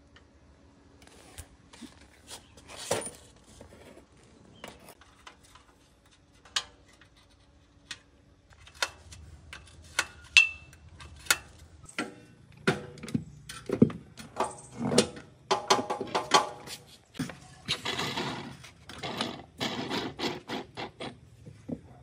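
Small metal parts and hand tools being handled during disassembly: scattered clicks and knocks, a short metallic ring about ten seconds in, then busier clattering and rattling from about twelve seconds on.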